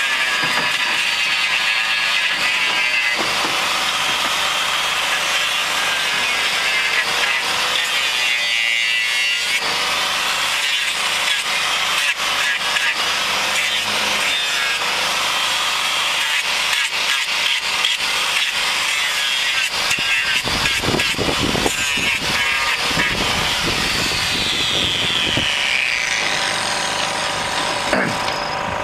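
Handheld power grinder trimming a cow's hoof, a steady high-pitched grinding and sawing noise as the disc cuts into the horn. Its whine drops in pitch about three-quarters of the way through.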